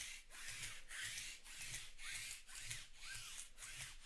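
Rhythmic back-and-forth rubbing, about three strokes a second, of a hand or cloth wiping down the black card-break mat to clean it.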